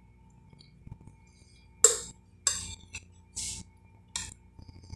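Metal spoon clinking and scraping against a glass bowl of food: a few short, sharp clinks and scrapes, the loudest about two seconds in.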